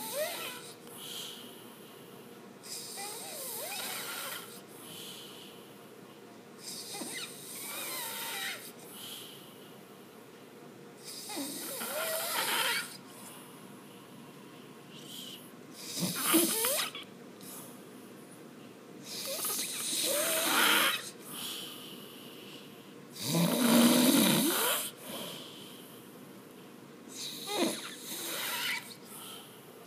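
A sleeper snoring, a noisy rasping breath roughly every four seconds. Each snore lasts a second or two, with quieter breathing between, and the loudest comes about three-quarters of the way through.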